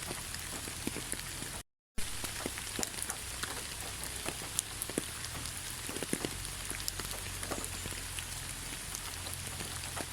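Steady rain falling in a forest: an even hiss with many separate drop ticks scattered through it. The sound cuts out completely for a fraction of a second about two seconds in, then resumes.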